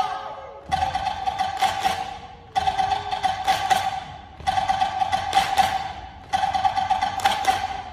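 Wooden percussion beaten in a repeating phrase that starts afresh about every two seconds, each phrase a cluster of sharp strikes that rings and fades.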